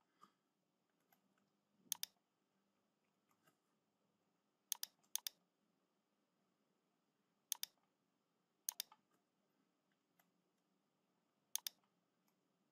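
Computer mouse clicking: a handful of short, sharp clicks, several in quick pairs, a second or more apart, with near silence between.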